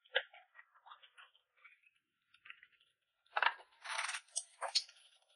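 Light clinks, taps and scrapes of tableware and food being handled at a table, a louder cluster of clatter and scraping from about three and a half seconds in.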